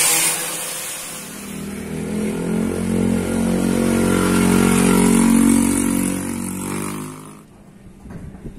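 A motor vehicle engine passes by, growing louder to a peak about five seconds in and fading out by about seven and a half seconds. A loud hiss cuts off right at the start.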